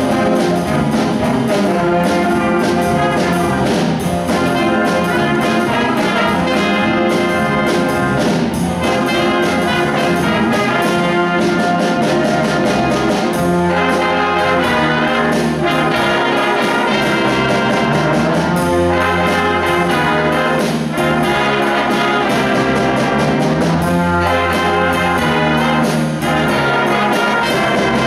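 A high school instrumental ensemble playing a piece live at a full, steady level, with a regular beat running through it.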